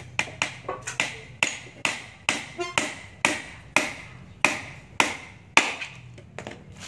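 Hammer driving nails into the planks of a small, rough wooden stool: a run of sharp, uneven blows about two a second, thinning out about a second before the end.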